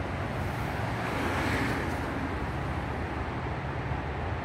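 Steady low rumble of an approaching Norfolk Southern diesel freight locomotive still well in the distance, mixed with wind noise on the microphone.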